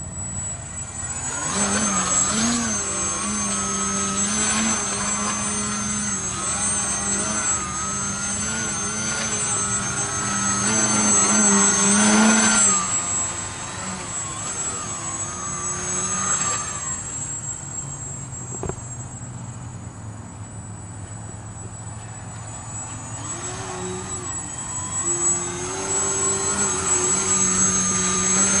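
Electric RC foam plane's Scorpion SII-2208 1100KV brushless motor and 9x4.7 propeller buzzing in flight, its pitch wavering with the throttle. It is loud for the first dozen seconds, fainter through the middle, and swells again near the end as the plane comes close.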